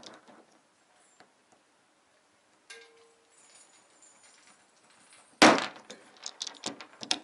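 A glue-pull mini dent lifter is squeezed on a hot-glued pulling tab on a car's hail-dented steel panel. About five seconds in, the tab lets go with one sharp, loud snap, followed by a few light metallic clicks from the tool.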